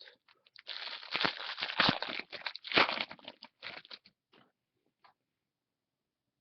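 Crinkling and rustling of trading-card packaging being handled and torn open, with sharp crackles, for about three seconds; a few faint ticks follow.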